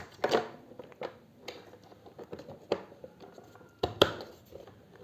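Detachable wrist rest being handled and pushed onto the front edge of a mechanical keyboard: a string of sharp hard clicks and knocks with light handling noise between them, the loudest knock about four seconds in.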